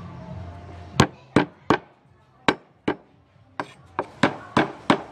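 Cleaver chopping galangal on a thick round wooden chopping board: about ten sharp knocks of the blade on the wood, starting about a second in, with a quicker run of five near the end.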